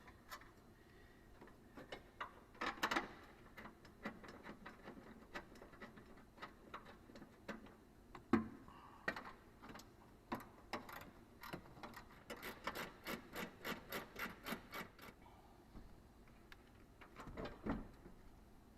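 Hand tools working on metal parts: scattered clicks and knocks, then a run of about a dozen quick, even clicks, about four a second, about two-thirds of the way through.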